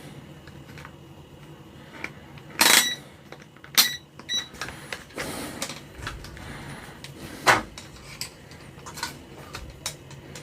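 Clicks and light metallic clinks from a small transistor and tools being handled, the loudest two about three and four seconds in with a short ring, then scattered lighter clicks and a rustle.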